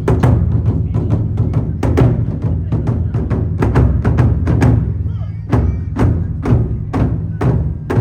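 Nagado-daiko taiko drums played by an ensemble: a steady run of hard stick strikes, about three to four a second, over a continuous low boom from the cowhide heads.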